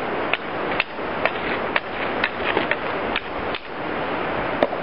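Sharp wooden clicks and knocks, about two a second and unevenly spaced, as frames are worked loose and lifted out of a wooden beehive, over a steady hiss.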